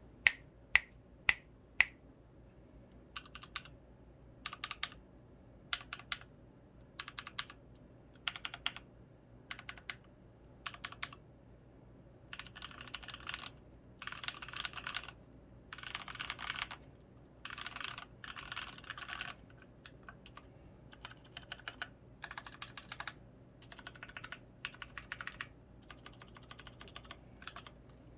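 Mechanical keyboard typing on lubed Kailh Polia tactile switches under Pudding keycaps: four sharp single key clicks about half a second apart, then short clusters of keystrokes. From about twelve seconds in come longer runs of fast typing with brief pauses between them.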